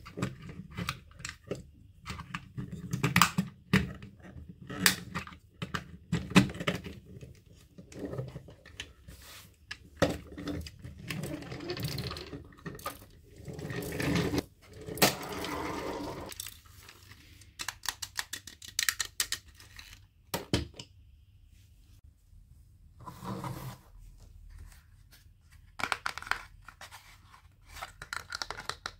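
Toy packaging being crinkled and torn open by hand: irregular crackles and rustles, with two longer tearing stretches midway and a short pause about three-quarters through.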